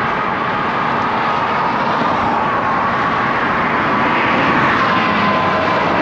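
Steady rush of wind and road noise while riding a road bicycle, with a faint whine of passing traffic that drifts slowly down in pitch.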